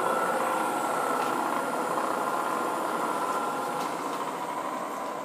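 Vectrax CNC mill's spindle running in low range at about 300 RPM: a steady mechanical running sound with a high whine, getting gradually quieter towards the end.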